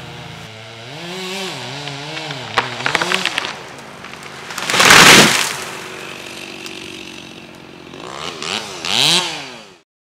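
Chainsaw revving up and down as a tall pine is felled. The tree crashes to the ground about five seconds in, the loudest sound. The saw revs again near the end and cuts off just before the end.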